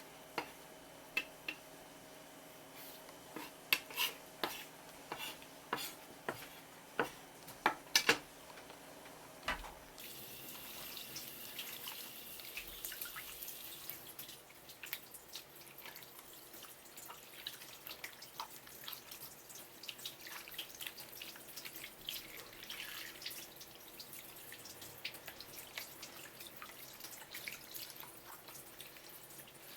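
Sharp clicks and knocks of kitchen utensils, then, after a sudden change about a third of the way in, water running from a tap into a sink with irregular dripping and splashing.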